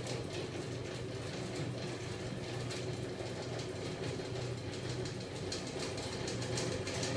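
Homemade magnet-coupled crankshaft rig driven by a small 12 V electric motor, running steadily with a low hum and a rapid, light clatter of ticks.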